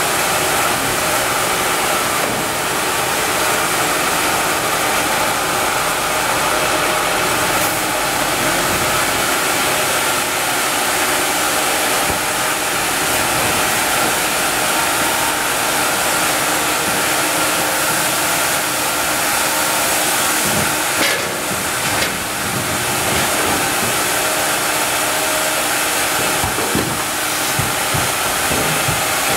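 Sawmill band-saw headrig sawing a maple log, a steady loud machine running with a strong hiss. A few knocks in the last third as the cut slab is handled on the conveyor.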